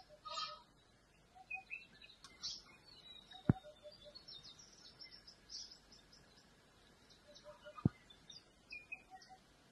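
Wild birds chirping and calling, with short high chirps and a repeated low two-note call. Two sharp clicks, a few seconds apart, stand out above the birdsong.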